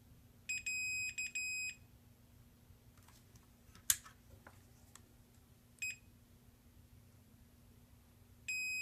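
Digital multimeter's continuity beeper giving a steady high-pitched beep each time the probes find a closed connection on a circuit board. There is a cluster of short beeps about half a second in, a brief beep near six seconds and another just before the end. A single sharp click comes about four seconds in.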